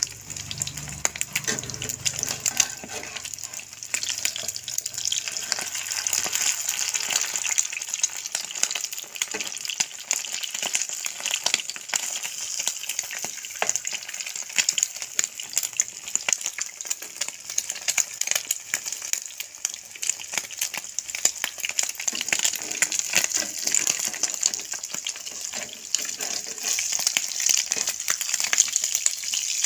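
Hot oil sizzling and crackling in a frying pan as a dulong and egg omelette shallow-fries: a steady hiss dense with small pops.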